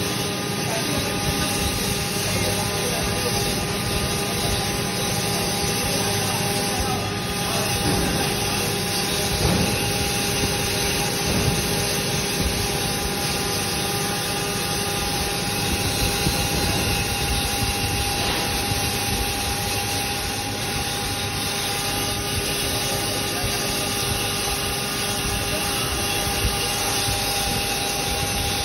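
A 3 HP multipurpose grinder (mini flour mill) running steadily while grinding grain fed from its steel hopper: a continuous mechanical hum with a steady high whine.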